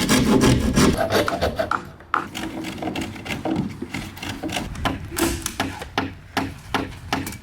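Hand work on wooden roof-truss timber: a quick run of rasping strokes for about two seconds, then a steady series of knocks on wood, roughly two or three a second.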